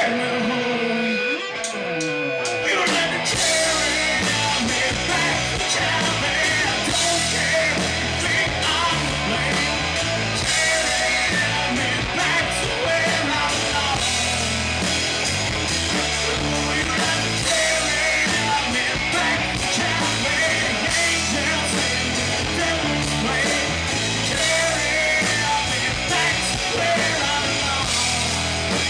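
Live rock band playing: distorted electric guitars, bass and drums under a male lead singer. The low end of bass and drums comes in about three seconds in, after a sparser opening of sliding guitar notes.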